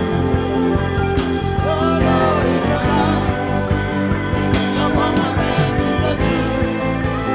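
Live worship band music with guitar, bass and drums keeping a steady beat between sung lines of a gospel song.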